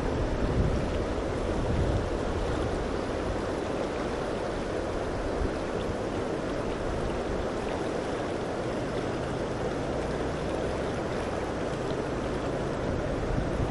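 Steady rush of creek water running high and fast.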